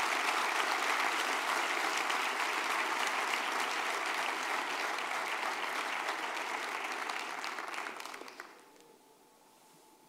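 Audience applauding at the end of a talk, dense clapping that fades away about eight seconds in.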